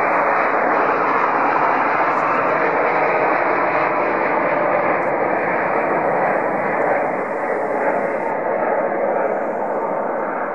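Boeing 787-9 Dreamliner's GEnx-1B turbofans at takeoff thrust as the airliner lifts off and climbs away: a steady, loud jet engine noise that fades slowly over the last few seconds.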